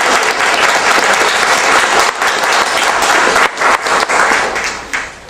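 Audience applauding a speaker who has just been introduced, the clapping dying away near the end.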